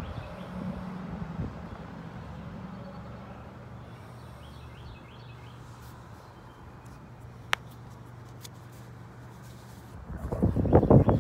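A car passing on the road and fading away, leaving a low steady traffic hum with a few faint bird chirps and one sharp click. About ten seconds in, loud buffeting on the microphone.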